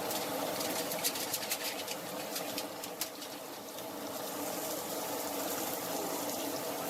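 Chicken breasts searing in hot oil in a frying pan: a steady sizzle with a run of crackles and spits about one to three seconds in, over a steady hum.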